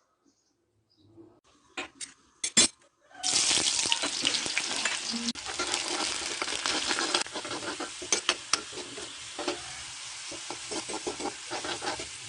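Food going into hot oil in a kadai about three seconds in: a sudden loud sizzle that slowly eases, with a spoon clinking and scraping against the pan as it is stirred. A few sharp clicks of utensils come just before.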